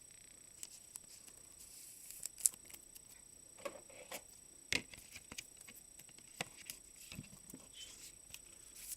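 Faint scattered clicks and light rustles of trading cards being handled, with a sharper tick about two and a half seconds in and another near five seconds.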